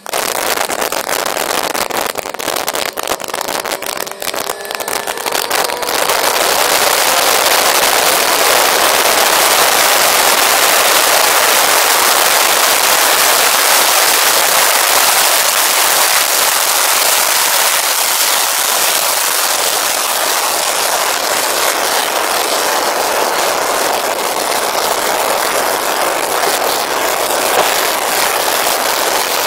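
Heavy wind noise on the onboard microphone of a Yamaha FZS600 motorcycle at track speed: choppy buffeting for the first few seconds, then about six seconds in it settles into a loud, steady rush that covers the bike's own engine.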